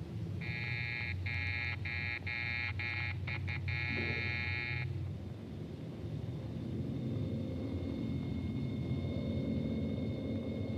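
An electric buzzer sounding in repeated bursts, about two a second, that shorten into a few quick taps and end in one longer buzz, over a low steady rumble.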